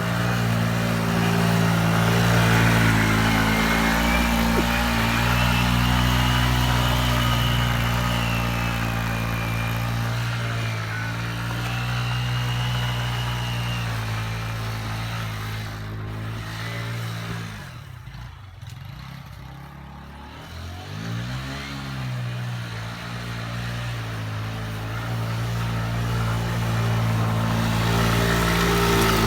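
Small moped engine running under throttle at a steady pitch. About two-thirds of the way through it drops back toward idle, its pitch falling and the sound fading, then picks up again and holds steady.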